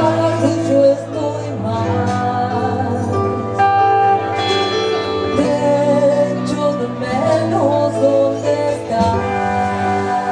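Live band playing a song: a woman sings lead over electric bass guitar and drums.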